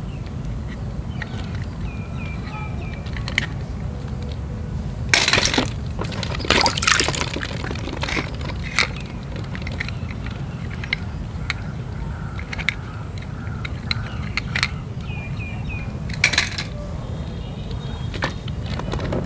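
Water splashing and sloshing in a tub as hands move toy cars and floating plastic balls about, with three louder splashes and small plastic clicks in between.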